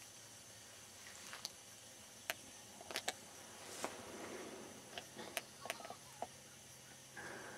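Scattered sharp clicks and brief rustles of camera handling as the camera is swung round, over a faint steady hiss of quiet woods.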